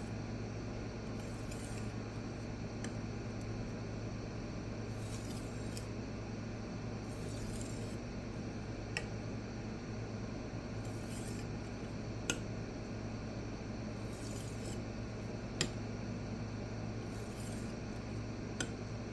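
Knife edge being stroked across a small resin-bonded diamond pocket stone: faint, soft scraping strokes every second or two, with a few light clicks, over a steady low hum. The stone is loaded up and cutting only a little, almost burnishing the edge.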